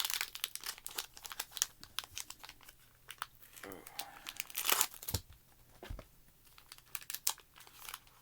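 Foil Pokémon TCG booster pack being torn open and handled: dense, irregular crinkling and crackling of the wrapper, loudest about four and a half seconds in.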